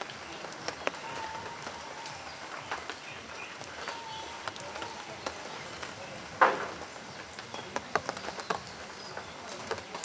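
Outdoor background noise with many scattered small clicks and ticks, faint brief tones, and one louder short burst about six and a half seconds in.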